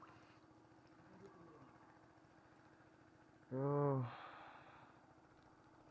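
A man's short voiced sigh about three and a half seconds in, trailing off into an exhaled breath, over a faint steady low hum.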